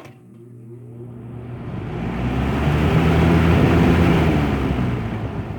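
Lakewood 223 box fan switched on at high speed: a click of the switch, then the motor and blades spinning up with a hum that rises in pitch and a rush of air that grows loud over the first three seconds.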